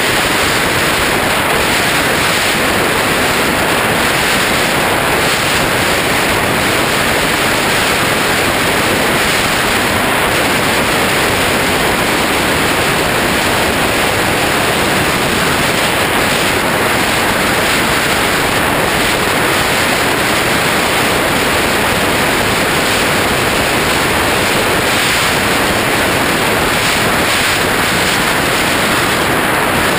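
Airflow rushing over a GoPro mounted on an FPV flying wing in flight: a loud, steady noise without breaks or pitch changes.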